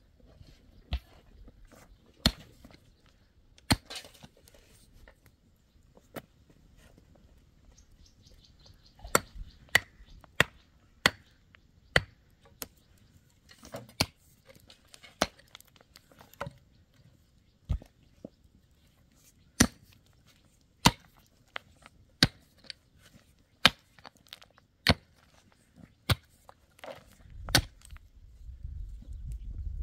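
A hand hoe's metal blade striking stony, dry soil again and again, one sharp chop about every second and a half, settling into a steady digging rhythm past the middle. A low rumble builds near the end.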